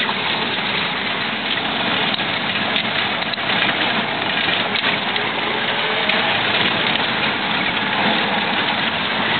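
Car driving along a gravel road, heard from inside the cabin: a steady mix of engine and tyre noise on the gravel.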